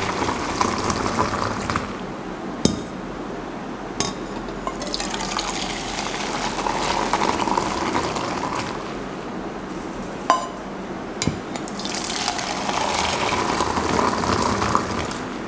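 Teh tarik (milk tea) poured from a height in a long stream into a stainless steel mug, splashing and frothing as it is pulled to build foam, in about three long pours. Between the pours come a few sharp clinks of the steel mugs.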